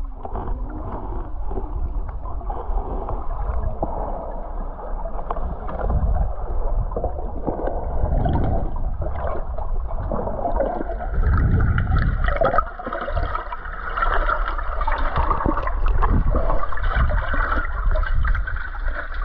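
Underwater sound picked up by a submerged camera: muffled water sloshing and gurgling over a low rumble, with irregular surges that grow louder about halfway through.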